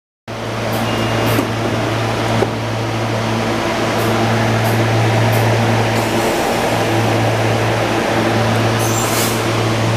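SEPTA Silverliner V electric multiple-unit train pulling away from a station: a steady electric hum over the rolling noise of its wheels on the rails, with a few sharp clicks in the first few seconds and a short high-pitched hiss or squeal near the end.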